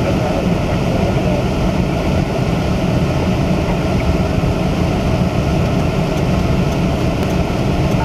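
Steady engine and road noise inside a moving car, its tyres running on a snow-covered road: an even, low rumble with no distinct events.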